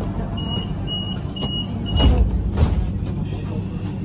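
Tram door warning beeper on a Bombardier Flexity Swift: four short high beeps, about two a second, sounding while the tram stands at a stop, then two low thumps. A steady low hum from the standing tram runs underneath.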